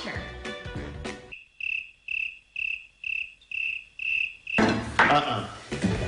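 Cricket chirping: seven evenly spaced high chirps, about two a second, in a gap where the background music stops. The music comes back near the end.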